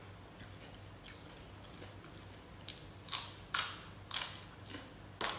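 Crunchy food bitten and chewed close to the microphone, a raw vegetable: quiet at first, then about six crisp crunches roughly half a second apart from about three seconds in.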